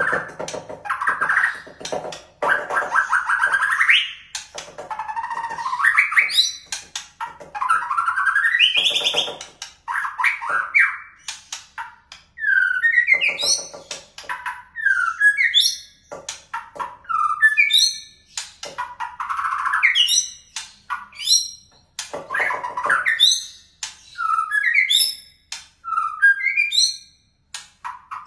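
White-rumped shama singing a loud, varied song of separate phrases: rising and falling whistled sweeps, some trilled, and runs of short, quick, high notes between them.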